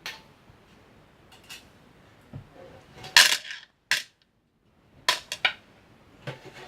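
Small metal parts clinking and clattering in a handful of separate sharp clicks and short rattles, the loudest cluster a little past halfway. About four seconds in there is a second of dead silence.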